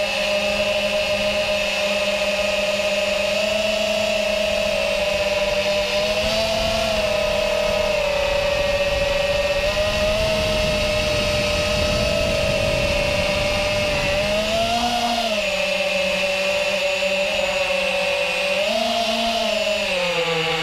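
FPV racing quadcopter's four brushless motors (DYS 2207 2300KV) spinning 5-inch tri-blade props: a steady buzzing whine whose pitch rises and dips with throttle changes several times in the second half. A low rumble swells midway.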